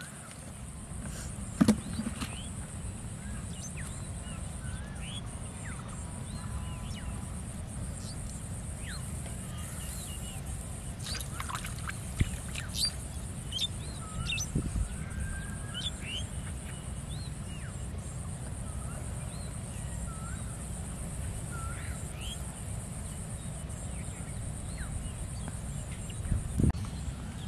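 Birds chirping and calling in short scattered notes over a steady low rumble and a steady high hiss. A sharp knock about a second and a half in, and a couple of smaller knocks near the end.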